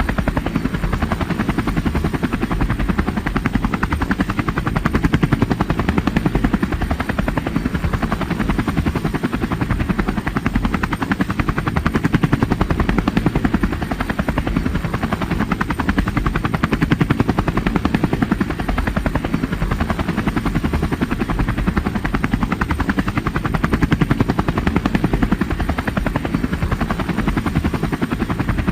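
Helicopter in flight: a steady, rapid chop of the rotor blades over a continuous engine rumble. The loudness swells and eases gently every few seconds.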